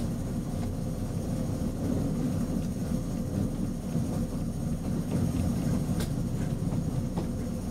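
Diesel shunting locomotive's engine running steadily, a low rumble heard from its cab, with a sharp click about six seconds in.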